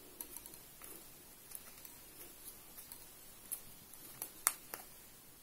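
Cutting pliers working the plastic insulation off the middle of a copper wire: scattered faint clicks and snips, the sharpest about four and a half seconds in.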